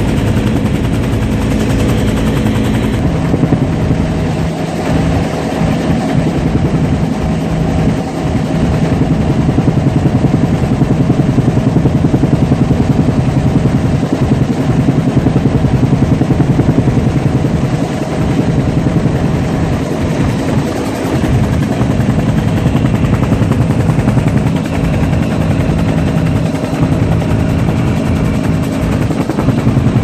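Helicopter in flight, heard from inside its cabin: a steady, loud mix of rotor and turbine noise with a few low steady tones. It gets louder for several seconds in the middle.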